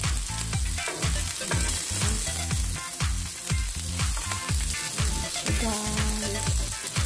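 Beef kebabs sizzling as they fry in oil in a grill pan, the fat spitting with a steady hiss. Background music with a steady beat plays over it.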